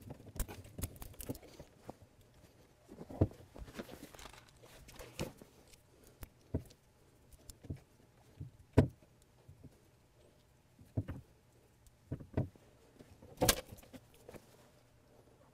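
Irregular clicks and knocks of hands working on a convertible-top hydraulic pump unit, its hoses and fittings being pulled and handled. The knocks come a second or more apart, and the sharpest is about nine seconds in.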